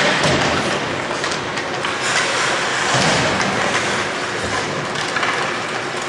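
Ice hockey play on an indoor rink: skate blades scraping the ice and sticks clacking against the puck and ice, with a few sharper knocks over a steady din.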